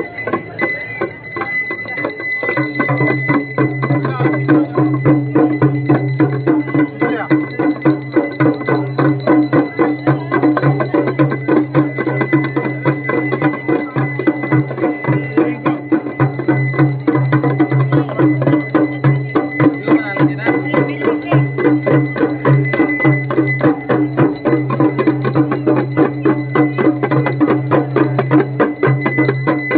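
Hindu aarti music: bells and percussion struck in a fast, even beat, with high bell tones ringing on, over a low drone that comes in a couple of seconds in.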